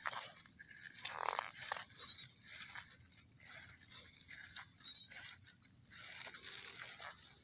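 Wild animal sounds: a steady high-pitched chorus with short clicks and rustles scattered through it, a slightly louder rustle about a second in.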